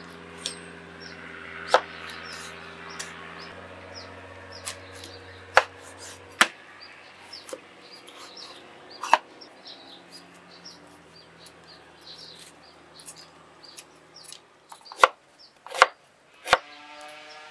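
Irregular sharp knocks and clicks of food being chopped on a board, over a low steady hum.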